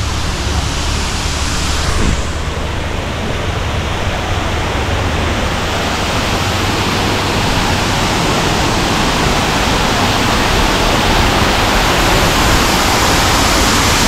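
Rushing water of a waterfall: a steady, even rush of noise that grows gradually louder. A heavier low rumble sits under it for the first two seconds.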